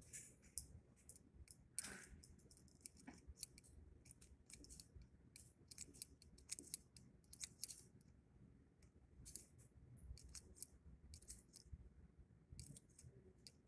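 Faint light metallic clicks and clinks, many in quick irregular succession: .22 LR brass cases being worked out of a revolver's cylinder by hand.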